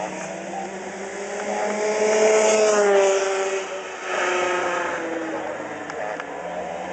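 Yamaha KT100 two-stroke kart engine racing past on the track, loudest about two to three seconds in, its pitch climbing and then falling away. About four seconds in, a kart engine comes up loudly again.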